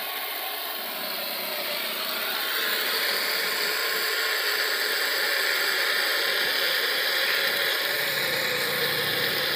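A pump's engine running steadily while it forces water into a tractor tyre as ballast, with the tyre full and water spilling out at the valve. The sound gets a little louder about two and a half seconds in.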